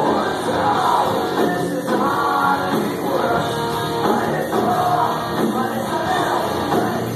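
Live rock band playing loudly with a singer.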